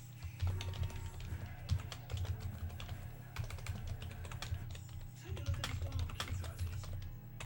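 Typing on a computer keyboard: a run of quick, irregular key clicks over a low hum.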